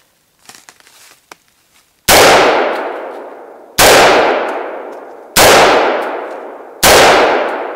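Four semi-automatic rifle shots from a Century Arms M16A1-pattern AR-15, about one and a half seconds apart, each followed by a long echoing decay.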